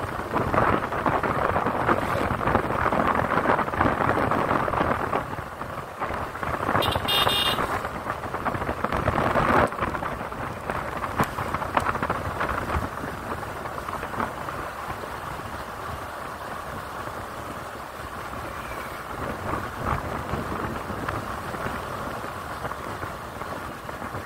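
Wind rushing over the microphone with road noise from a moving bike, louder in the first ten seconds. A short high-pitched tone sounds about seven seconds in.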